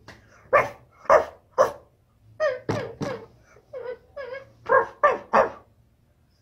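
A woman's voice imitating a dog, giving about a dozen short barks in quick, uneven succession.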